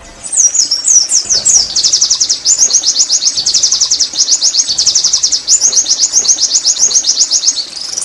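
White-eye (pleci) singing: a few quick, high sweeping notes, then a fast, high-pitched trill of rapidly repeated notes, about ten a second, that runs on for several seconds.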